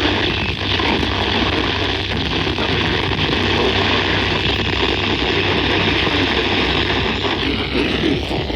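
Steady radio static from a weather radio receiver on a weak signal: an even hiss with a low hum beneath it.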